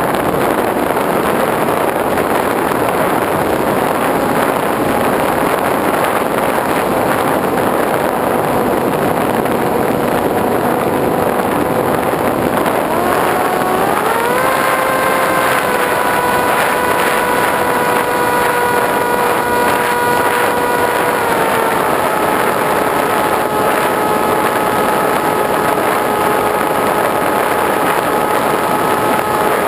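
Model airplane's motor and propeller running under a heavy rush of wind, heard from the onboard camera. Its pitch climbs a little before halfway as the throttle goes up, holds, then drops slightly twice, about two-thirds through and again near the end.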